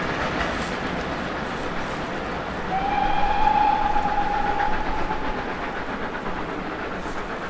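Steam train running away into the distance, its rumble slowly fading, with one long steady whistle blast about three seconds in that lasts about three seconds.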